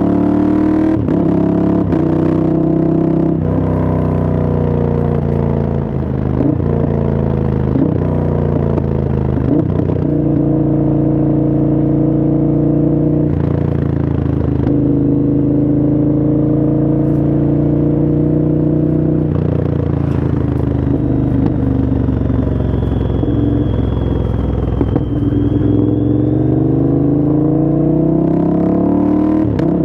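Moto Guzzi V100's transverse V-twin through an aftermarket Mistral exhaust, ridden hard: the engine note climbs in pitch and breaks off again and again through the first half, like a run up through the gears. It then holds a steady pitch for a few seconds, falls away and climbs again near the end.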